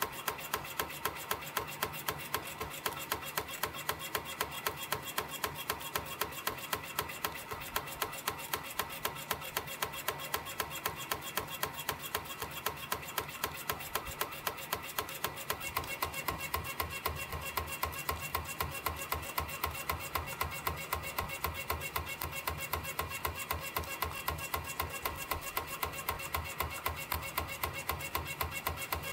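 YHM CF-310 CNC spring coiling machine running in production, forming compression springs from 0.6 mm wire: a fast, even clicking of about three to four strokes a second over a steady mechanical whine.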